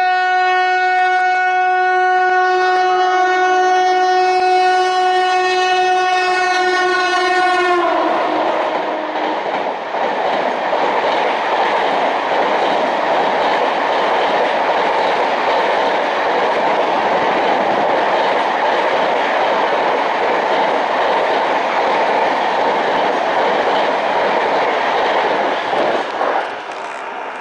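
Express train locomotive sounding a long, steady horn blast for about eight seconds, the horn dropping in pitch as the locomotive passes. Then the coaches rush past at speed with wheels clattering over the rail joints, cutting off abruptly near the end.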